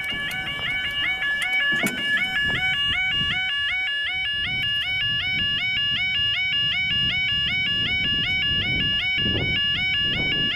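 UK level crossing yodel alarm sounding, a loud electronic two-tone warble that repeats rapidly and without a break, warning road users that the barriers are coming down for a train.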